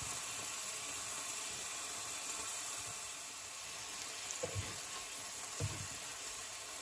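A steak sizzling steadily in melted butter in a frying pan, with chopped onion and garlic frying around it. A few soft, low thuds come in the second half.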